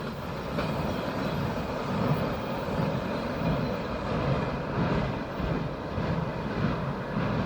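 Double-stack intermodal freight cars rolling past at about 65 mph: a steady rumble of steel wheels on rail with no horn.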